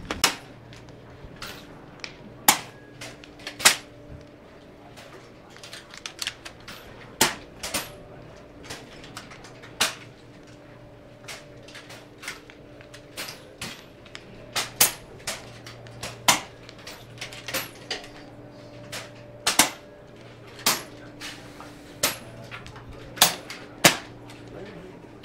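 PCP air rifles fitted with moderators firing shot after shot: sharp cracks at irregular spacing, often less than a second apart, over a steady low hum.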